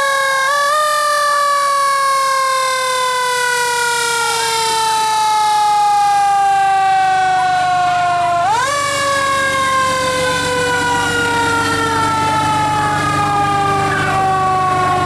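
Fire engine's mechanical siren winding down, its wail falling slowly in pitch. About eight and a half seconds in it is wound back up with a quick rise, then sinks slowly again.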